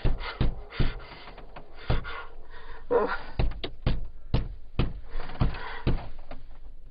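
A run of irregular knocks and thumps, some close together and some a second or more apart, over a faint background murmur.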